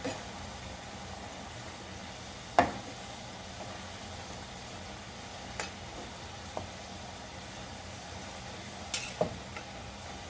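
Potato fries frying in hot oil: a steady sizzle, with a few sharp clicks scattered through it, the loudest about two and a half seconds in.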